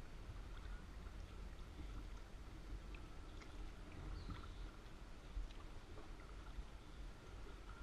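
Faint water lapping and trickling around a sea kayak's hull as it glides without paddling, over a steady low rumble, with scattered small ticks of drips and splashes.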